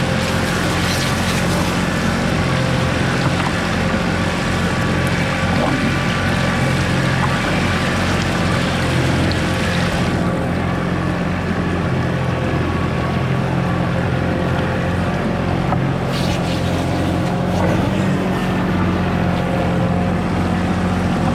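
A deck hose sprays water out of a freshly cleaned king crab over a steady low motor hum. The spray hiss stops about halfway through and starts again a few seconds later.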